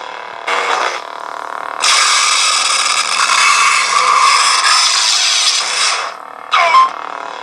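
Lightsaber sound effects from a CFX sound board: a steady blade hum with a brief clash just after the start, then a sustained crackling blade-lockup effect for about four seconds, and a sharp clash near the end.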